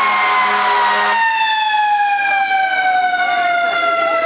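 Fire engine siren winding down in one long, slowly falling tone, with a loud air-horn blast over it that cuts off about a second in.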